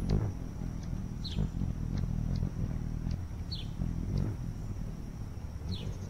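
A bird giving short falling chirps, three of them about two seconds apart, over a steady low rumble.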